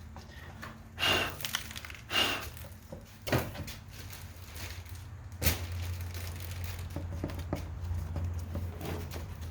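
Parts being handled during repair work: three short scraping, crinkling bursts in the first few seconds, the first two with a brief squeak, then a single sharp click or knock about five and a half seconds in, over a low steady hum.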